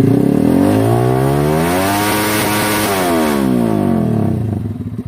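Single-cylinder motorcycle engine through an Akrapovic Evo GP exhaust with the silencer removed, revved once from idle up to high RPM, held briefly and let fall back to a pulsing idle.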